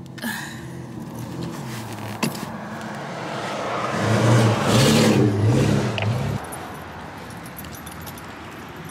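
A passing motor vehicle: engine and tyre noise swelling over a few seconds, its low engine note wavering, then cutting off suddenly about six seconds in.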